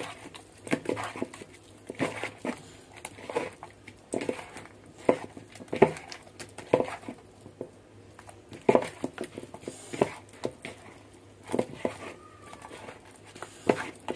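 Hand kneading and turning pieces of rohu fish coated in turmeric, chilli powder and salt in a plastic bowl: irregular wet squelches and knocks, one or two a second.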